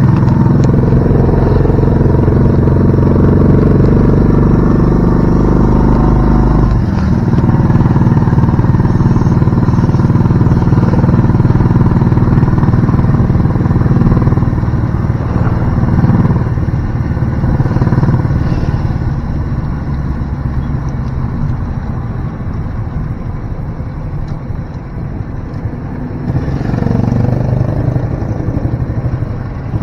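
Motorcycle engine of a tricycle running steadily while riding through traffic, heard from inside its sidecar. The engine note changes abruptly about seven seconds in, eases off later, and picks up again near the end.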